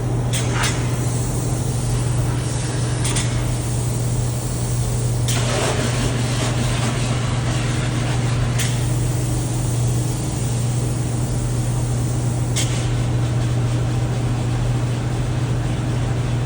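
A steady low machine drone with a few short bursts of hissing.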